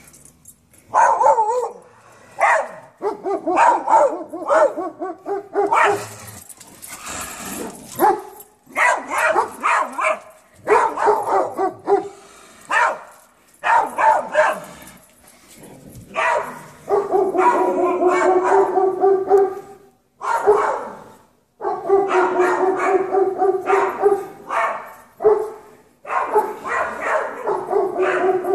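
Dogs barking and yelping at a mountain lion in repeated bouts. In the second half the calls turn into longer, held calls.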